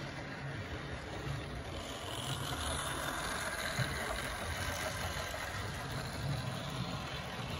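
Model railway freight train running along the track: a steady rumble of the locomotive's motor and the wagons' wheels on the rails, growing a little louder about two seconds in as the train passes close.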